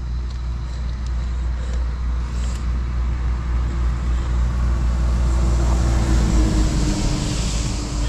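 A motor vehicle passing on the road close by, a low rumble with tyre and engine noise that grows louder over the last few seconds.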